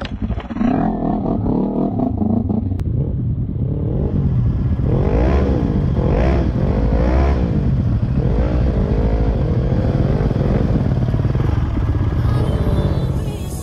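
Quad ATV engines: a low steady running close by, and from a few seconds in another quad's engine revving up and down repeatedly, about once a second, as it climbs a steep slope.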